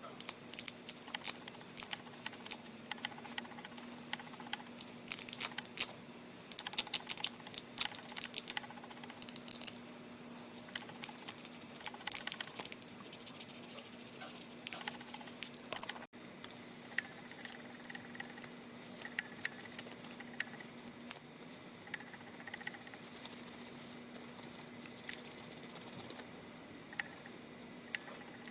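A cloth rubbing and scrubbing over the plastic casing of an old brick mobile phone during cleaning, in quick irregular scratchy strokes with small clicks and taps as the handset is handled. A faint steady hum runs underneath.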